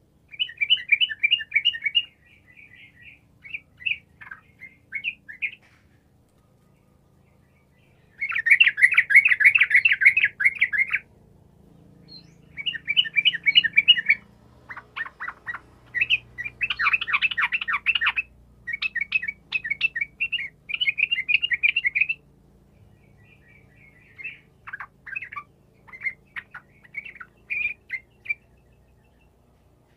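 Caged yellow-vented bulbul singing loudly, a series of rapid chattering phrases a second or two long with short pauses between them. The longest and loudest phrase comes about eight seconds in.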